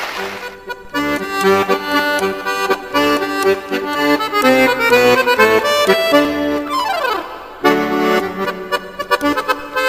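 Instrumental introduction to a child's vocal solo: a band playing melody over chords, with a quick downward run of notes about seven seconds in and a short break just after it.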